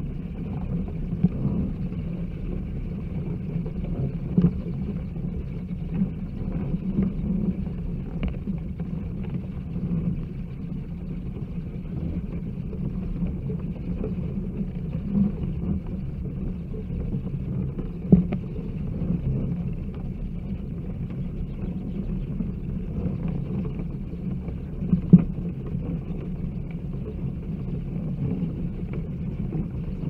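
Bat roost ambience: a steady low rumble under a faint, continuous high chatter, with a few sharp clicks standing out, the loudest about 18 and 25 seconds in.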